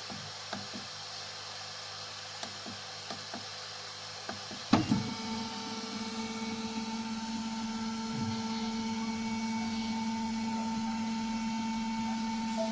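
Flashforge Creator Pro 3D printer running, with faint light ticks at first. About five seconds in there is a sharp click, and then a steady motor whine of a few fixed tones that grows a little louder.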